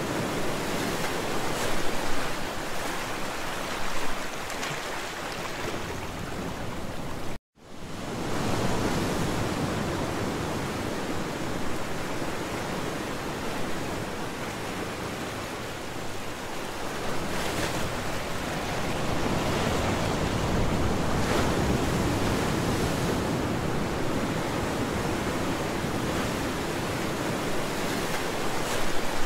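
Sea waves washing steadily, swelling now and then as a wave breaks. About seven seconds in the sound drops out completely for a moment and then fades back in.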